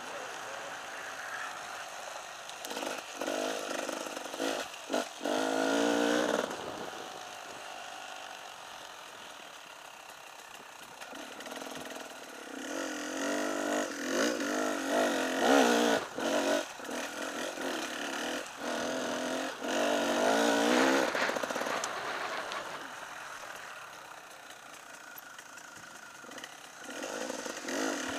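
Enduro motorcycle engine from the bike itself, revving up and falling back again and again as the throttle is opened and closed, with quieter low-rev stretches about ten seconds in and again near the end. A few sharp knocks and clatter from the bike over rough ground.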